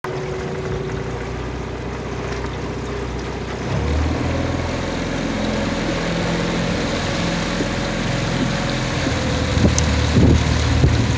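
Outboard motor of a coaching launch running steadily at low speed under a hiss of wind and water, getting louder about four seconds in; a few bumps near the end.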